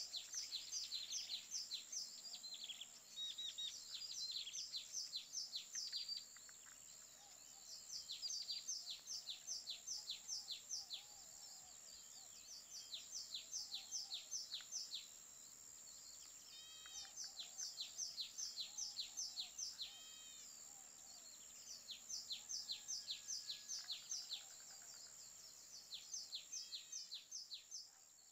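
Songbird singing in repeated phrases of quick, high, downward-sweeping notes, a phrase every few seconds, with a few separate calls in between, over a steady high-pitched tone.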